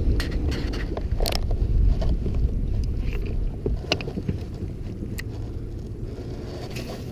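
Kayak on the water with wind rumbling on the microphone, and a few sharp knocks and clicks from paddle or gear against the hull. The rumble eases off toward the end.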